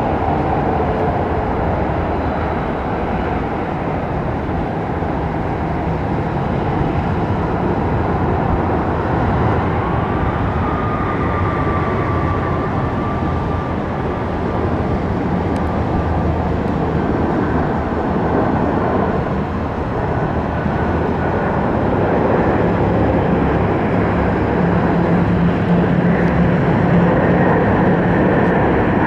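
Jet airliner engines running: a steady, loud rush with a faint whine that appears about ten seconds in, growing a little louder near the end.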